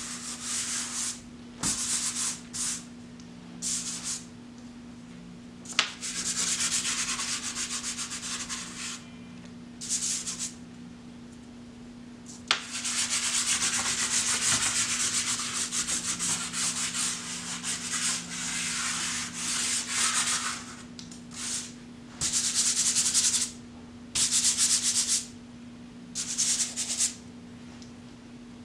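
Hand, fingers and stick of wood charcoal rubbing and scraping across brown paper in irregular strokes, some under a second and some several seconds long, with short pauses between. A steady low hum sits underneath.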